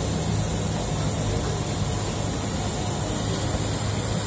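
Steady heavy rain mixed with the constant low hum and high steady whine of a parked jet airliner's machinery running on the apron.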